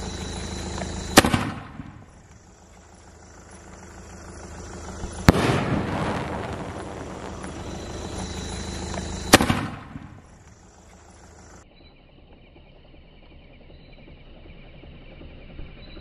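Sony Fireworks 'Denmark' sky shot firing its medium aerial shells: three sharp bangs about four seconds apart, each trailing off in a rush of noise.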